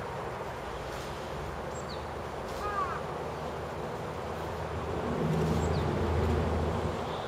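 Steady background hiss with outdoor sounds: a single bird call about three seconds in, faint high chirps, and a low rumble of a passing vehicle that swells in the second half and is the loudest sound.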